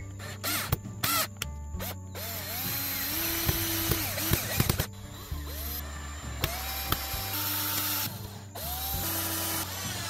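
Cordless drill-driver driving screws into pallet wood. The motor runs three times, the first run about three seconds long starting two seconds in and the next two shorter, each spinning up with a rising whine.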